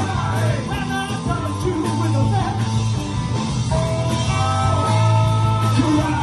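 A live garage rock band playing through a loud, driving song, with a saxophone holding long notes over electric guitars, a steady bass line, drums and vocals.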